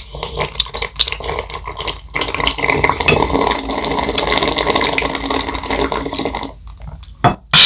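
A child slurping samgyetang chicken broth from a bowl held to her mouth: a long, continuous run of wet sipping that stops about six and a half seconds in, followed by one short click.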